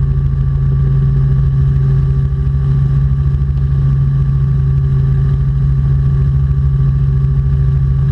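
Robinson R44 Clipper II helicopter in flight: a steady engine and rotor drone with a fast low pulsing beat underneath, unchanging throughout.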